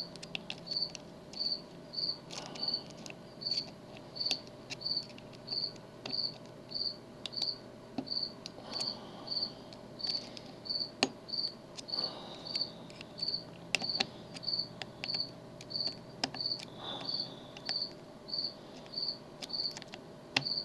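A cricket chirping steadily, about three high chirps every two seconds. Scattered faint clicks of a tubular lock pick working the pins of the lock sound between the chirps.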